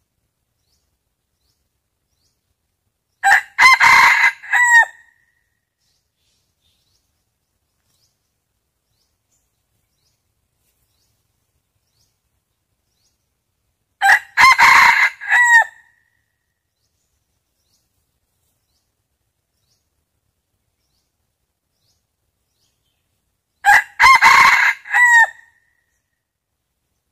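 Red junglefowl rooster crowing three times, about ten seconds apart, each crow lasting under two seconds. It is a male's territorial crow, used as a decoy call to lure wild junglefowl cocks.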